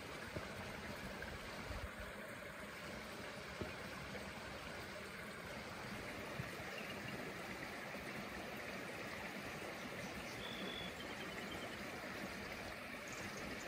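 Steady outdoor background hiss, with a few faint soft ticks and a brief faint high chirp about three-quarters of the way through.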